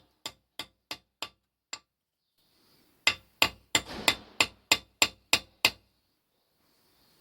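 Hammer tapping a 6 mm steel pin into a slightly undersized 5.9 mm hole in a steel chuck key blank: about six light taps, a pause, then about nine harder, evenly paced strikes, roughly three a second, ringing metal on metal.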